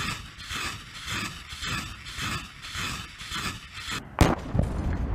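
BM-21 Grad truck-mounted multiple rocket launcher firing a salvo: rockets leave the tubes in a rapid, even series, about two a second. About four seconds in comes one sharp bang, the loudest sound.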